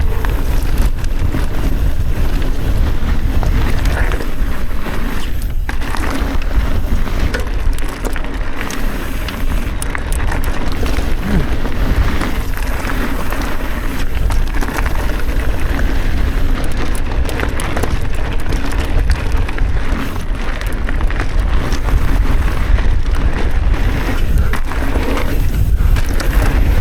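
A mountain bike being ridden along a dirt trail: wind rumbling on the camera's microphone over tyres rolling on dirt and the bike's rattle, all steady.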